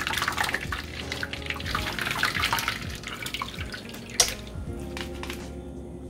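Water running and splashing, as from a kitchen tap while something is rinsed, easing off after about four seconds, with one sharp knock just after. Background music plays under it.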